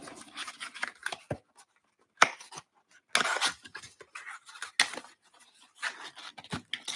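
Small cardboard trading-card box being torn and pried open by hand: a run of short scrapes and rustles with a sharp click about two seconds in and a longer rasp of tearing cardboard just after three seconds.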